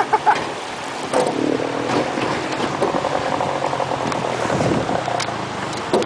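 Small outboard motor on an aluminium boat running steadily, with the rush of river water around the hull.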